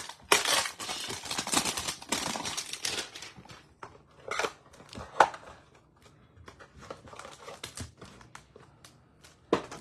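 Cardboard Donruss baseball card hanger box being torn open: dense crinkling and tearing of the packaging for the first three seconds. Then scattered rustles and taps as the box is handled and the stack of cards slid out, with one sharp tap about five seconds in.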